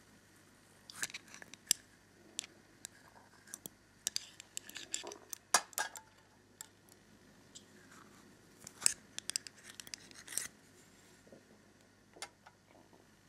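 Light clicks and clinks of metal tweezers against small glass vials, and glass vials being set down on a metal tin lid, in scattered clusters of taps.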